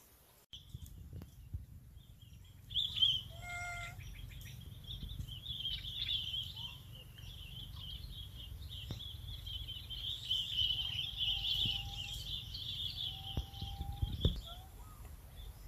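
Small birds chirping and twittering in a steady chorus from about three seconds in until near the end, over a low rumble. A short pitched call sounds about three and a half seconds in, and two brief whistles come later.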